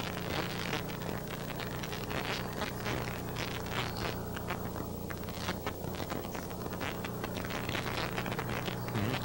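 Steady hiss and low electrical hum with irregular crackling throughout: background noise on an old videotape soundtrack.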